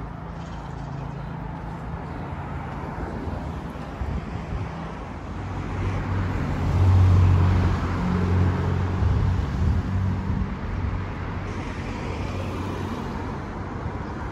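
Road traffic going past on a town street, with one car passing close about halfway through, its low engine hum the loudest sound.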